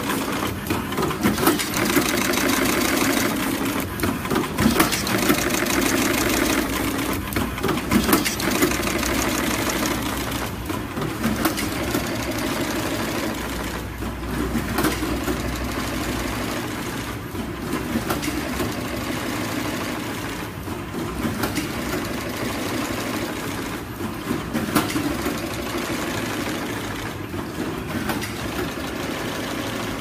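Automatic flat cable cut-strip-crimp machine running, its cutting and crimping mechanism clattering with repeated sharp clacks over a steady hum.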